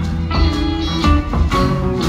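Live band playing: electric guitars ringing over bass and a steady drum beat.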